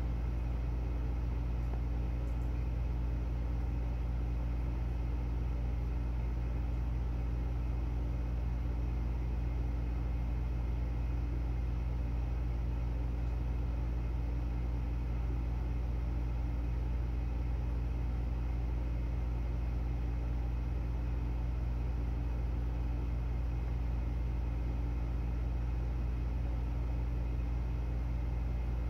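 Steady low rumble with a faint steady hum and no distinct events. It is the ambient sound of a large outdoor crowd standing silent in a city, heard through a television broadcast during a moment of silence.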